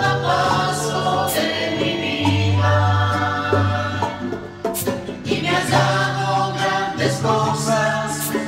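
Christian worship music: a small group of voices singing together in harmony over held bass notes.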